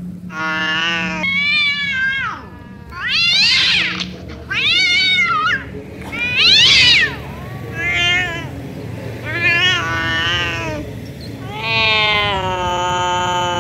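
Tabby cat meowing over and over: about nine long, loud calls, several rising and then falling in pitch, with short pauses between them.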